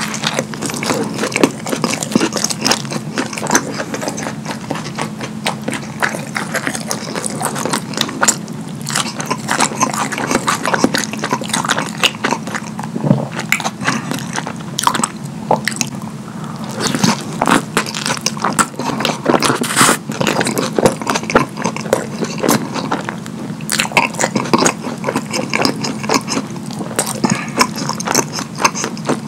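Close-miked ASMR eating: messy chewing and biting into a burger smothered in cheesy Alfredo sauce, with a steady stream of small mouth clicks and crackles.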